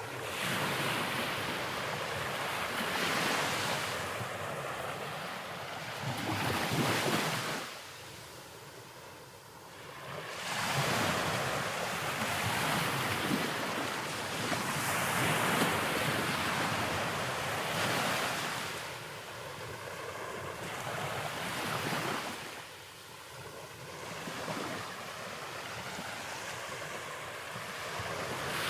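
Ocean surf: a broad rushing noise that swells and fades every few seconds as waves break, with wind.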